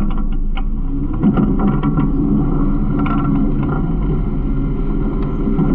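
Garbage truck running, its engine droning steadily, with a few light rattles and clicks.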